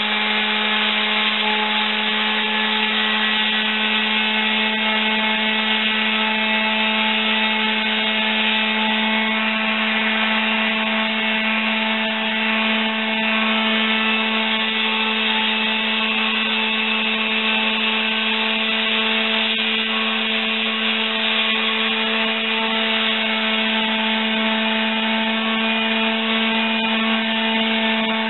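Corded electric palm sander running with very fine sandpaper pressed against the heel of a bare foot, sanding off dry, rough skin. A loud, steady motor hum that holds one pitch and level.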